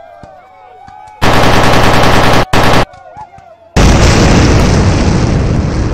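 Gunfire sound effects: a loud burst of rapid machine-gun fire about a second in and a second short burst, then a loud explosion-like blast near the end that slowly dies away.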